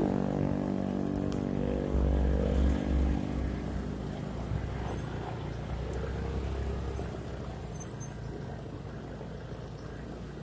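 Honda automatic scooter's small single-cylinder four-stroke engine running at low speed while riding along a rough grass-and-dirt trail. A heavier low rumble comes in about two seconds in and lasts about a second, and the sound grows slowly quieter toward the end.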